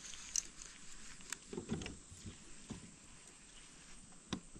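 Faint, scattered clicks and a few dull knocks from handling a baitcasting rod and reel aboard a kayak, with a sharper click about four seconds in.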